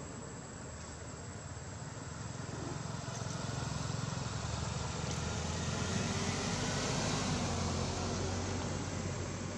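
A motor vehicle passing: a low engine rumble with tyre hiss that builds over several seconds, is loudest about seven seconds in, then starts to fade.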